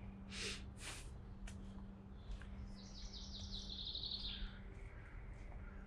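A small songbird singing a quick trill of rapid high notes, drifting slightly down in pitch, about three seconds in, after two short scuffing noises in the first second. A faint steady low hum runs underneath.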